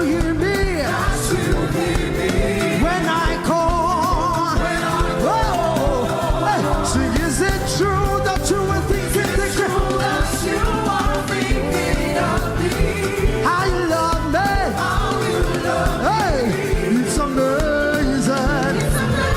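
Live gospel praise music: a band with drums and cymbals plays while a singer holds long, wavering, ornamented vocal lines over it.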